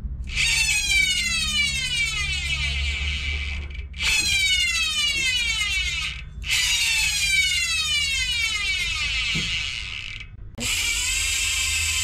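Chosen 150T freehub, freshly serviced, buzzing with a high rapid ratchet as the cassette is spun by hand and coasts down three times, each buzz falling in pitch as it slows. Near the end comes a steadier buzz as the wheel freewheels in the bike.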